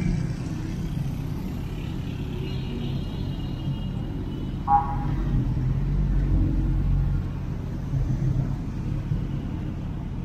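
Motorcycle riding through city traffic: a steady low engine and road rumble, with a short horn toot about halfway through.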